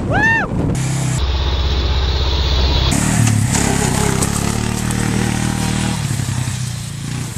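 A brief shout with a rising-then-falling pitch, then a motor vehicle's engine running loudly for several seconds as the drop-off vehicle moves off.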